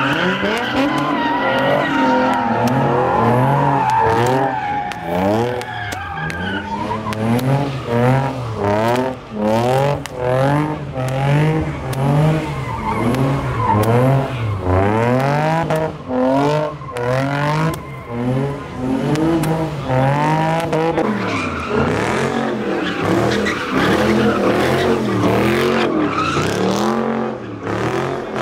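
A car doing donuts, its tyres squealing and skidding on the pavement while the engine revs up and down over and over, about once a second.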